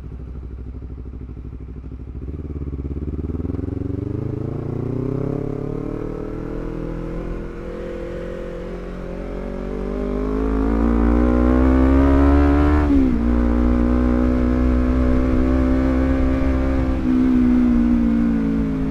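Honda CBR250RR with a Villan MV2 carbon-forged full-system aftermarket exhaust, riding on the road under throttle, running without its dB killer. The exhaust note climbs steadily as the bike accelerates, drops sharply about 13 seconds in at a gear change, then holds an even pitch before easing off near the end.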